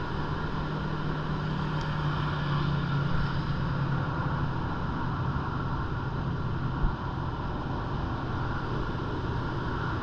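Heavy surf from typhoon swell breaking along a sandy beach: a steady wash of wave noise. A low hum fades over the first half, and there is a brief thump about seven seconds in.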